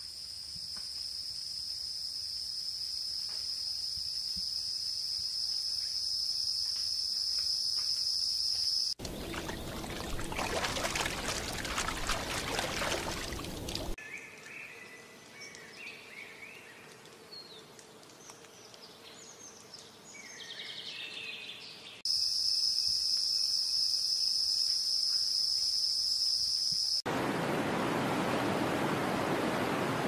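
A spliced run of nature ambience. It opens with a steady, high insect drone, then a few seconds of rushing water, then quieter bird chirps and whistles for about eight seconds. The insect drone returns, and near the end the even rush of a flowing river comes in.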